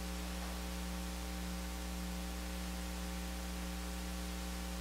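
Low, steady electrical mains hum: a buzz of stacked even overtones under a faint hiss.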